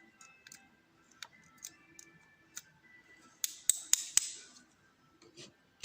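Small metal lock pins clicking and tinkling against hard surfaces as a Euro cylinder is gutted and its pins handled, with a quick run of louder clicks about three and a half seconds in.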